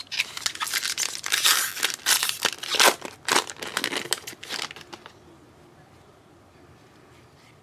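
A foil trading-card pack being torn open, its wrapper crinkling, for about five seconds.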